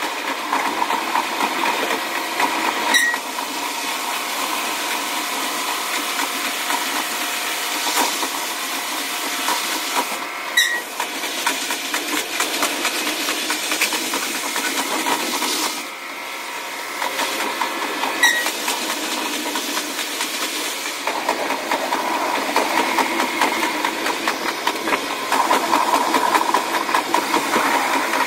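Running sound of a KiHa 185 series diesel railcar from the cab, played back sped up: a steady rushing hiss with no deep rumble. Three brief chirps break through, spaced several seconds apart.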